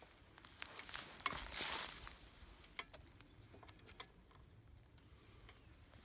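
Scattered small clicks and scraping from pliers and gloved hands working at the pins of a mini backhoe bucket's attachment, with a louder rustling scrape about a second and a half in.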